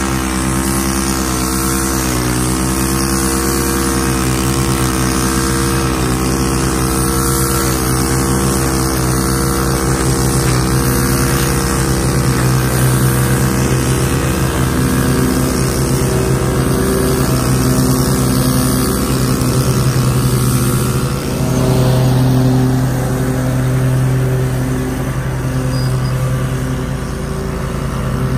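Ferris Z1 36-inch stand-on mower's engine running steadily while mowing grass, with a handheld string trimmer engine running close by. The engine pitch shifts about two-thirds of the way through.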